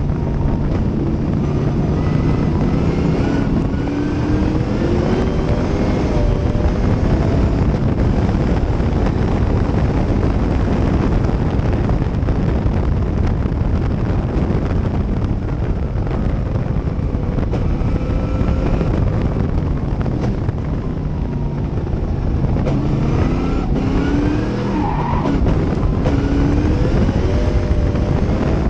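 Cobra race car's engine at racing speed, heard from the open cockpit over wind rush on the microphone. Its pitch rises and falls with the throttle, most clearly a few seconds in and again near the end.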